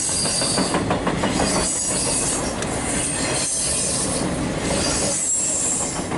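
Loaded autorack freight cars rolling steadily past, steel wheels clicking over the rail joints, with a thin high wheel squeal now and then.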